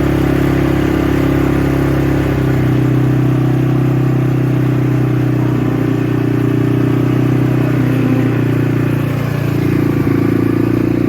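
A vehicle engine running steadily at low speed, its note shifting slightly a couple of times.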